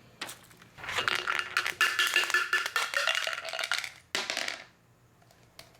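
Dice being rolled: a dense clatter of small hard clicks with some ringing for about three seconds, then a shorter clatter as they settle.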